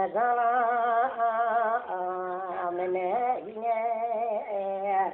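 A voice singing a slow melody with long held notes and vibrato.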